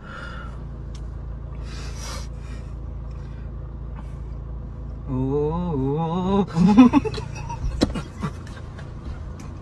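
Steady low rumble of a car interior. About five seconds in, a man's voice holds a long note that wavers up and down, then breaks into a short loud burst of voice, followed by a few sharp clicks.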